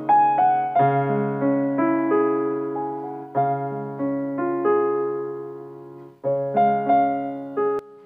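Background piano music: a gentle melody of struck notes over low bass notes struck again every few seconds.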